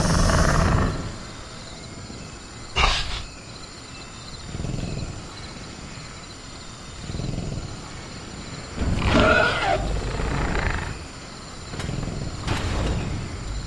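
Sound-effect velociraptor growling and snarling in a series of low, rough swells, loudest in the first second and again about nine to eleven seconds in, with a short sharp sound about three seconds in.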